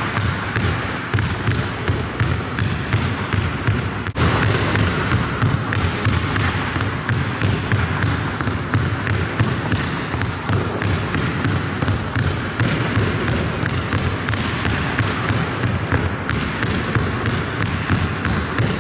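Many basketballs being dribbled at once in a ball-handling drill: a dense, unbroken clatter of overlapping bounces, with a brief break about four seconds in.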